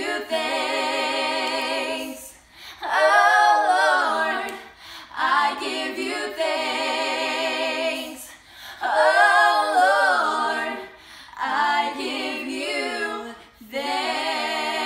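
Three female voices singing together unaccompanied, a cappella: long held notes with vibrato, in phrases a few seconds long broken by short pauses for breath.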